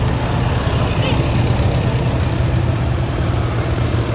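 An engine running steadily, a continuous low hum with no change in speed.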